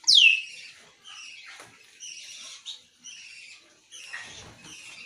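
Grey parrot calling: a loud whistle that falls sharply in pitch, followed by a string of short, raspy, high-pitched squeaks about once a second.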